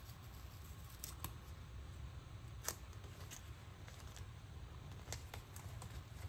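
Light handling sounds of paper and washi tape: scattered soft clicks and crinkles as tape strips are pressed onto a journal page and the page is turned, with one sharper click a little under halfway through, over a low steady hum.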